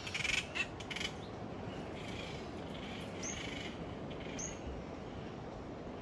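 Birds calling in the tree canopy: a few short, rough calls in the first second, then two quick high chirps that drop in pitch, about three and four and a half seconds in, over steady wind noise.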